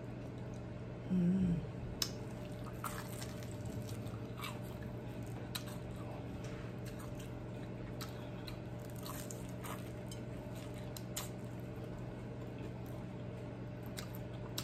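Close-miked chewing of a sauce-coated chicken wing: wet mouth clicks and lip smacks scattered throughout, over a steady low hum. A short hummed 'mm' comes about a second in.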